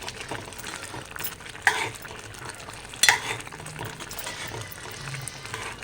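A ladle stirring cooked dal with spinach in a pot, with two sharp knocks of the ladle against the pot, the first under two seconds in and the second about three seconds in.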